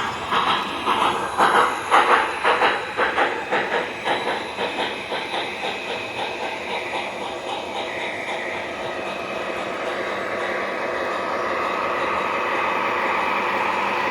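O gauge model train running on a small track loop: a rhythmic clicking clatter that fades over the first several seconds, giving way to a steady hum that grows louder toward the end.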